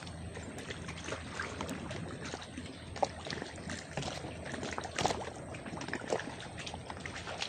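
Water lapping and sloshing at the edge of the sea, with scattered small clicks and knocks over it.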